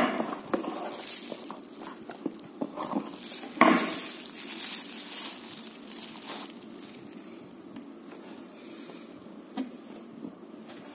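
Plastic bubble-wrap bag crinkling and crackling as it is handled and unwrapped, with sharp crackles at the start and again about four seconds in. The handling is busy for the first six seconds or so, then turns into quieter rustling with an odd click.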